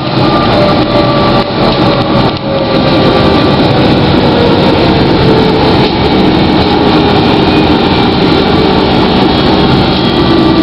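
Ride noise inside a GT6M low-floor tram, with the traction motor's whine falling slowly and steadily in pitch.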